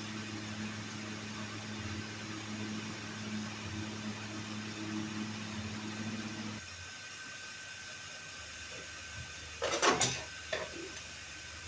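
A steady low mechanical hum that cuts off suddenly about two thirds of the way through, followed by a few short knocks near the end.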